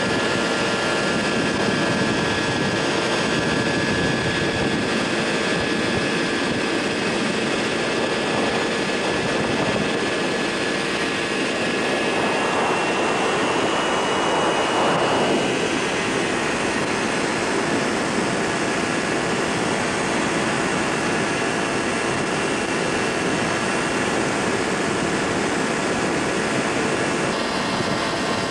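Microlight trike's engine and propeller running steadily in flight, heard from on board with wind rushing over the microphone. A brief swell of rushing noise comes about halfway through.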